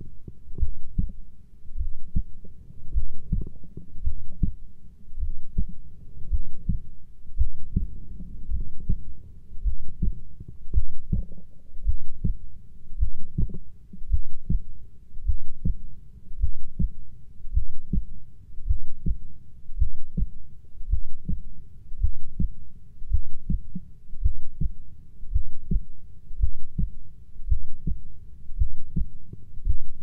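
Heartbeat recorded up close: a slow, steady rhythm of low double thumps (lub-dub), a little under one beat a second.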